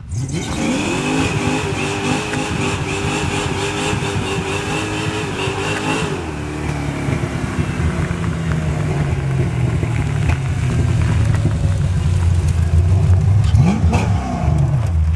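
Fox-body Mustang 5.0 V8 revving up hard and held at high revs for about six seconds while the rear tyres spin in a burnout. It then drops to a lower, steady engine rumble, with a brief rising rev near the end.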